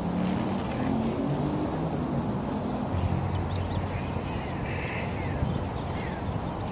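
Steady low outdoor rumble with a low hum, and a short harsh bird call about four and a half seconds in.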